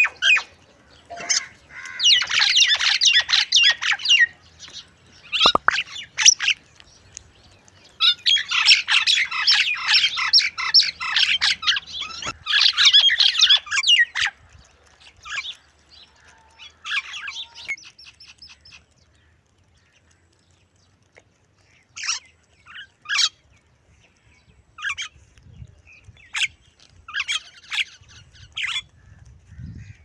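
Common mynas and house crows calling as they feed: long bursts of busy chattering and squawks in the first half, then scattered short calls.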